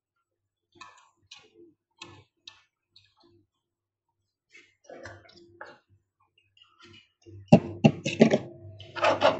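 Handling sounds on a workbench: light clicks and taps as a small perfboard is turned over in the fingers and set down. Near the end come a few louder knocks and clatter.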